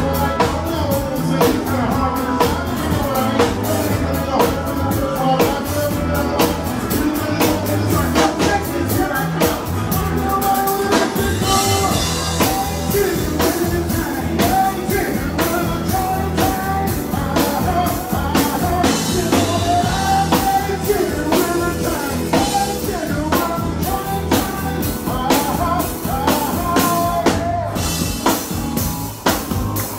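Live band playing an upbeat country-rock song: a drum kit keeps a steady driving beat under guitar, with a man singing into a microphone over it.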